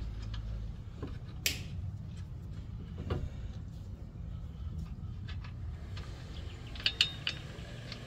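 Steel wheel nuts being handled and threaded by hand onto the wheel studs, giving scattered metallic clicks and clinks: one sharp click about a second and a half in and a few more close together near the end. A low steady hum lies underneath.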